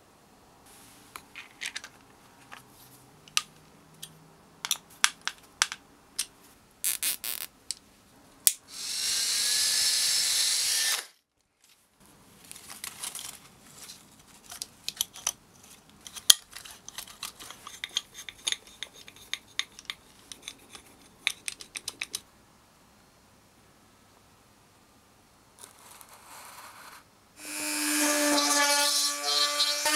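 Scattered clicks and handling noises of small parts on an RC truck chassis, with a small motor spinning up and running for about two seconds around nine seconds in. Near the end a handheld rotary tool spins up and runs steadily, drilling a hole through a clear polycarbonate body shell.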